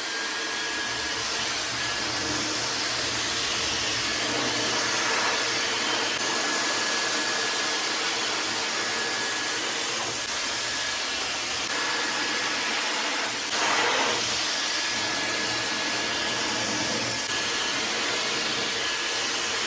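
High-speed hair dryer running steadily: a rushing blast of air with a thin high whine from its motor. About two-thirds of the way through, the sound briefly gets louder.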